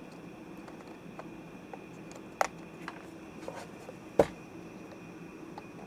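Small computer memory modules and parts being handled: scattered light clicks and taps, with two sharper clicks about two and a half and four seconds in, over a faint steady hum.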